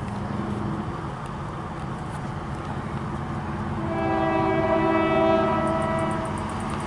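Approaching freight train's locomotive air horn sounding one chord blast of about two seconds, starting about four seconds in, over the low rumble of the oncoming train. The horn sounds weak.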